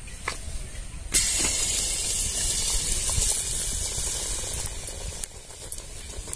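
A ladleful of banana-and-flour malpua batter is dropped into hot refined vegetable oil in an aluminium kadai. A loud frying sizzle starts suddenly about a second in and runs steadily, easing off near the end: the oil is hot enough for the batter to puff.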